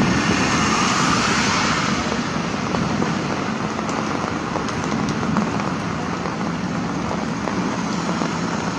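Traffic on a wet road: a car passes with its tyres hissing on the wet asphalt, a little louder in the first two seconds, then a steady wash of road noise.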